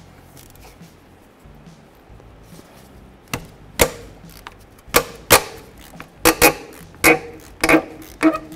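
Ratchet with a socket extension working a starter mounting bolt loose. After about three seconds of quiet come sharp metallic clicks and knocks, one or two a second, each ringing briefly.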